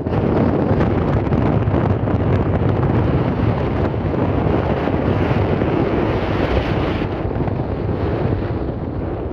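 Wind buffeting the microphone: a loud, steady rumbling noise with no clear events in it.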